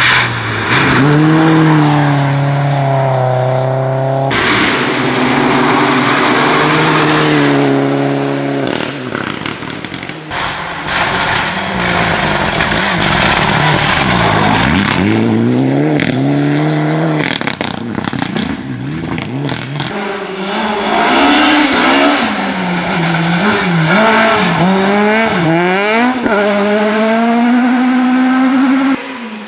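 Several rally cars in turn driven flat out on a gravel stage, among them an old Volvo saloon and a Mitsubishi Lancer Evolution. Engines rev high and drop through gear changes over a hiss of tyres on gravel. The sound switches abruptly from one car to the next every few seconds.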